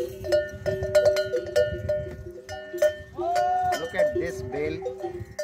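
Large metal bell on a camel's neck, shaken by hand: repeated clanking strikes, each leaving a steady ringing tone that carries on between strikes.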